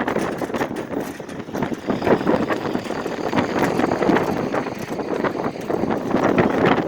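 A sign shaking in gale-force wind, rattling and knocking irregularly in its mounting, with wind gusting over the microphone.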